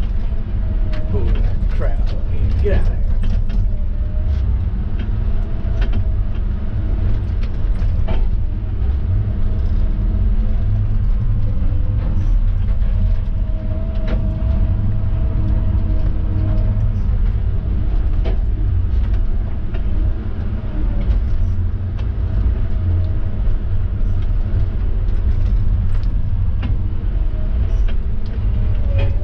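Diesel engine of heavy logging equipment running steadily with a deep rumble, over it scattered clicks and creaks of working machinery and a faint whine that comes and goes.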